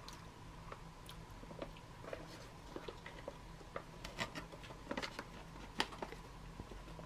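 Retort pouch of pork curry being squeezed out by hand: faint, scattered crinkles and soft ticks from the pouch, with a few sharper crackles about halfway through.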